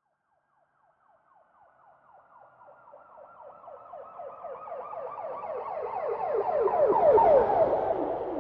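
Police siren on a passing vehicle, its wail rapidly repeating several sweeps a second. It fades in from silence about a second in and grows steadily louder as it approaches. Near the end it is at its loudest with a low rumble from the vehicle, then the pitch drops as it passes.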